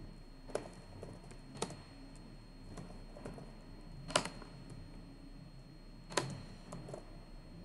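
Computer keyboard keys tapped one at a time in an unhurried, irregular run of keystrokes, with two louder key strikes about four and six seconds in.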